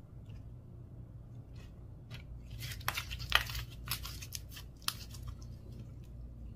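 Slime with mini balls being handled and stretched, giving a run of sticky crackles and snaps about halfway through, the sharpest a little past the middle, with a few fainter clicks before and after.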